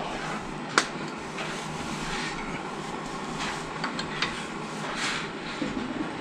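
Sharp metallic clicks and taps of a hand tool working on a VW Beetle's rear drum-brake parts, with one loud click about a second in and a few lighter ones later, over a steady hiss.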